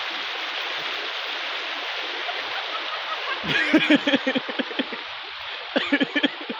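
A steady rushing noise throughout, with two short bursts of a person's voice, quick choppy sounds about halfway through and again near the end.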